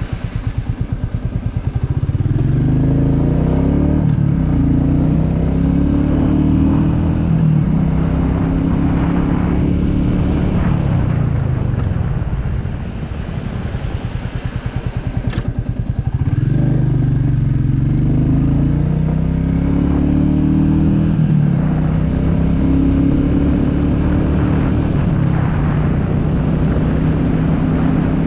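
A Royal Enfield Meteor 350's single-cylinder engine pulses at low revs, then pulls away, rising up through the gears. Near the middle it drops back to a slow idle, then accelerates up through the gears again.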